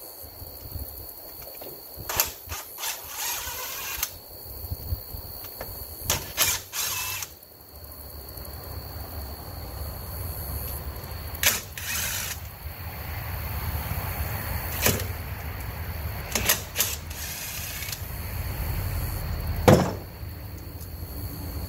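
Hand tools and metal engine parts clinking and knocking in short clusters as the top end of a 1000cc V-twin engine is worked on by hand, with the loudest knock near the end. A faint steady high tone runs underneath.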